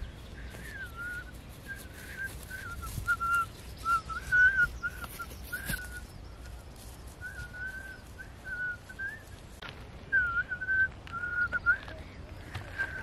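A person whistling a wavering tune in short notes with small slides in pitch, with a few light clicks and rustles now and then.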